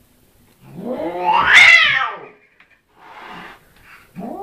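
Domestic cat yowling at its own reflection in a mirror: one long drawn-out call that rises and then falls in pitch. A softer breathy sound follows about three seconds in, and a second yowl begins near the end.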